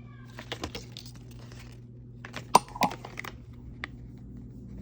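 Small hard plastic pieces being handled: light taps and rattles, with two sharp clicks about two and a half and three seconds in.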